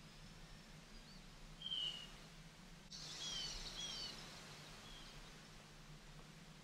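Small birds chirping: short, high, down-slurred notes, the loudest a little under two seconds in and a quick cluster of several around three to four seconds in, over a faint low hum.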